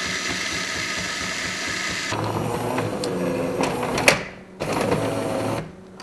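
Jura E8 super-automatic espresso machine running its cappuccino cycle: a steady mechanical whirring and hissing that changes tone about two seconds in, with a sharp click about four seconds in, a short pause and a brief resumption.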